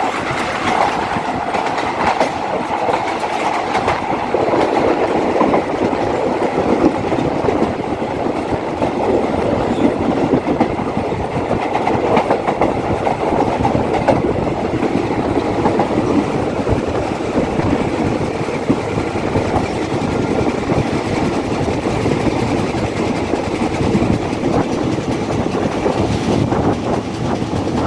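Steel wheels of a moving metre-gauge passenger train running over the rails, heard from an open carriage window: a steady clatter with many clicks over the rail joints.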